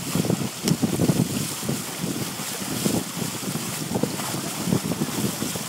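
Water rushing and splashing along the hull of a heeled Hunter Vision 32 sailboat under sail, with wind buffeting the microphone in uneven gusts.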